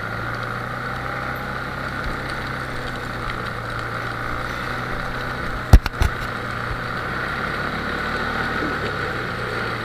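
ATV engine running steadily while towing, with two sharp knocks close together about six seconds in.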